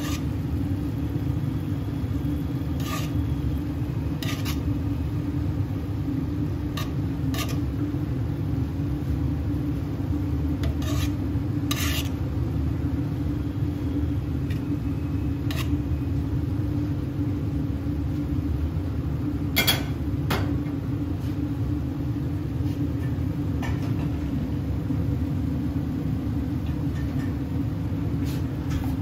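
Steady low rumble and hum of kitchen equipment, with a few scattered sharp clinks and knocks of metal cookware, the loudest about twenty seconds in.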